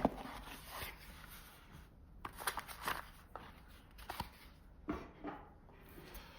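Rustling and scattered light clicks and taps from a charging cable and its packaging being handled.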